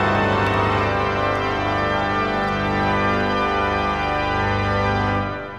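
Intro of a 1988 hip-hop track: a sustained organ chord held steady, beginning to fade away near the end.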